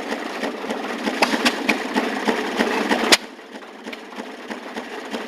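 Maytag two-stroke gasoline engine on an antique wringer washing machine running with a fast, even stream of firing knocks. A sharp click comes about three seconds in, and after it the sound is noticeably quieter.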